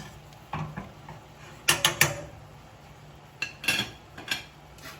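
Metal utensil clinking against a pan: three quick, sharp clinks a little under two seconds in, then a few more a couple of seconds later.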